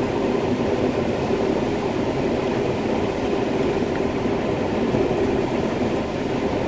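Combine harvester running steadily while harvesting corn, heard from inside the cab: a constant mechanical drone with a steady hum under it.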